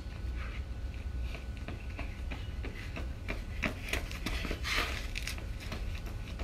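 Running footsteps of athletic shoes on concrete: a quick run of short slaps that grows loudest about four to five seconds in as the runner comes close, then fades as he runs off again.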